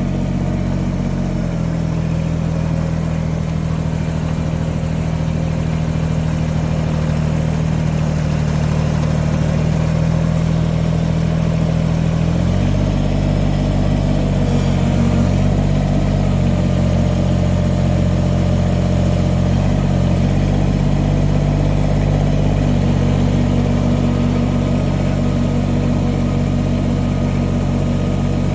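Kubota 2350 compact tractor's diesel engine running steadily and loud, its note shifting about twelve seconds in as the tractor moves brush on clamp-on pallet forks.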